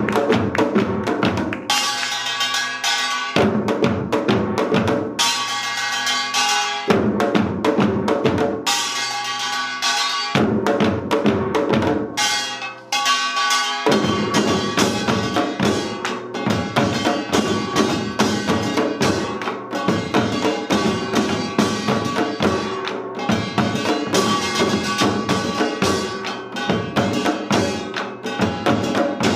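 Korean samul nori ensemble playing seated, Yeongnam-style rhythms on janggu hourglass drums, buk barrel drums and gongs. Drums and ringing gongs come in phrases with short breaks every second or two, then about halfway through the playing runs on without breaks.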